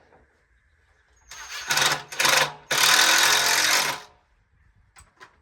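A handheld power driver running as it drives a screw into the hard plastic of a Polywood rocking chair: three short runs, then one longer run of about a second and a half that stops about four seconds in.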